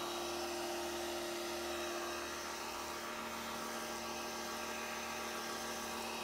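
TEANDE 1800 W electric pressure washer running while spraying, a steady motor-and-pump hum over the hiss of the spray. The owner thinks it seems almost to be cavitating, as if still trying to build pressure.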